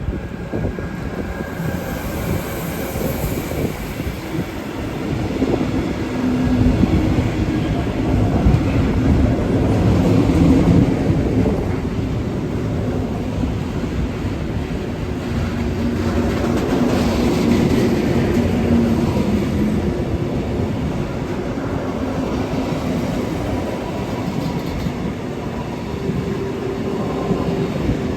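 InterCity 225 train running at speed, its wheels rumbling and clattering over the rails, with a steady drone that swells a few seconds in and holds.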